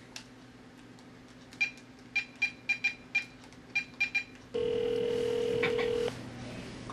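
Mobile phone keypad beeping as a number is dialled, about ten short key tones, then one steady ringing tone as the call goes through.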